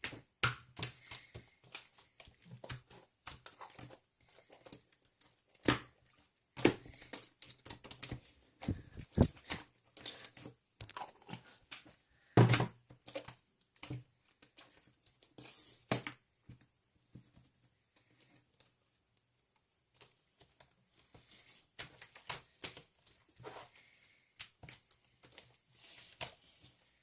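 Irregular handling noises: scattered clicks, taps and crinkling, with a quiet stretch a little past the middle.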